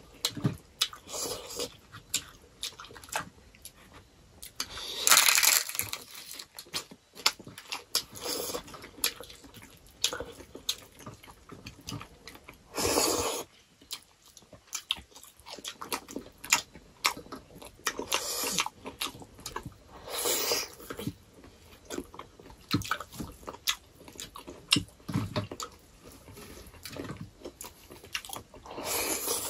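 Two people chewing and biting food while eating a rice and pork curry meal by hand: many short, sharp mouth clicks, with a few louder bites lasting about a second, about 5, 13 and 20 seconds in and again near the end.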